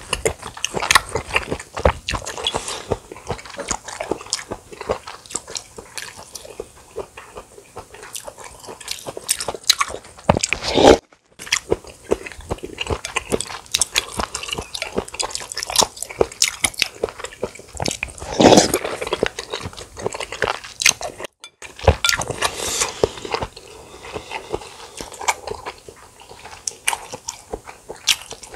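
Close-miked eating sounds: a man chewing and biting mouthfuls of spicy bibimbap, with dense, irregular wet smacks and crunches.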